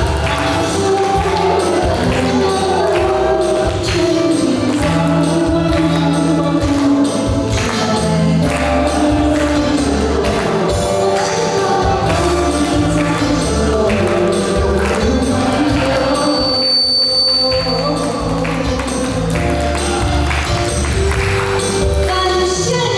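Music: a song sung over a backing track with a steady beat and bass.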